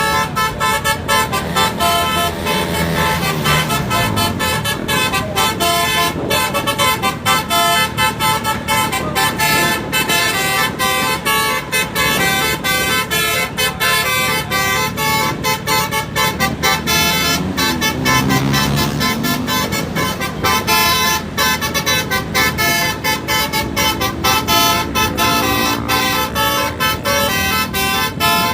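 Basuri multi-tone "telolet" bus horn playing a long, unbroken tune of quickly changing notes. A low sound glides down and back up beneath it, once a few seconds in and again about two-thirds through.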